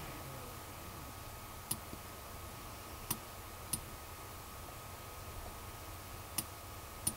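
Five short, sharp computer mouse clicks, irregularly spaced, over a faint steady hiss.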